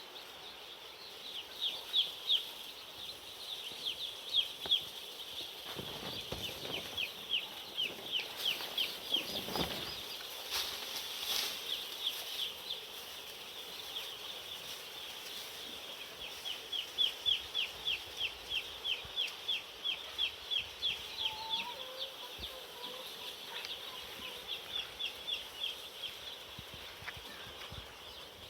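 Day-old broiler chicks peeping: a dense run of short, high, falling chirps, several a second, with a few knocks between about six and eleven seconds in.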